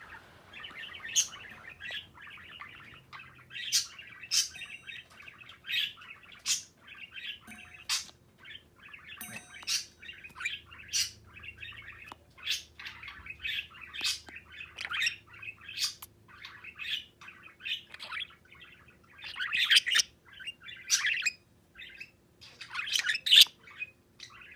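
Pet budgerigar chattering and warbling steadily, with sharp clicks. Twice a short, high metallic ping rings out as the bird pecks a fork.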